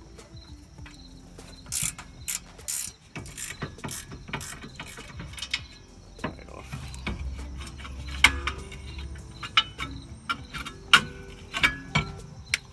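Ratchet wrench clicking and sharp metal clinks as the 14 mm brake caliper bolts are worked loose, with a brief low rumble in the middle.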